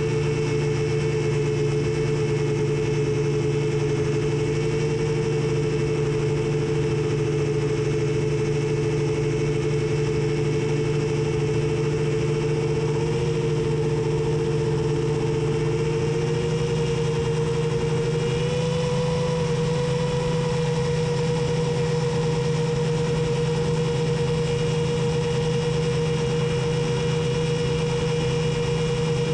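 Electric motors and 7-inch propellers of a TBS G2 long-range FPV quadcopter making a steady whine at cruise throttle. The pitch wavers a little and rises slightly about two-thirds of the way through as the throttle changes.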